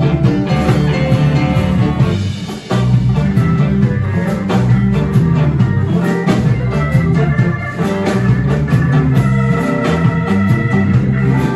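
Live blues band playing: electric guitar, bass guitar, drum kit and keyboard, with a brief dip in level about two and a half seconds in before the full band carries on.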